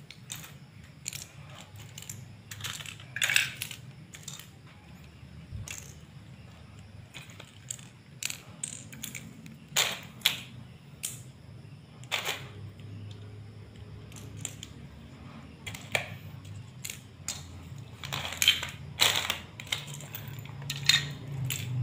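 Loose plastic LEGO minifigures and pieces clicking and clattering against each other and a hard floor as they are sorted by hand: irregular light clicks, a few louder knocks.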